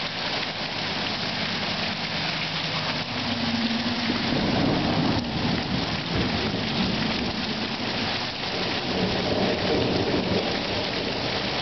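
Heavy rain falling steadily, with thunder rumbling in from about three seconds in and again near the end.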